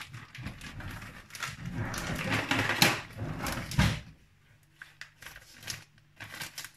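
A plastic bag of grated cheese rustling and crinkling as it is handled and the cheese is shaken and sprinkled out, with many small clicks. It goes much quieter about four seconds in, leaving sparse ticks over a faint low hum.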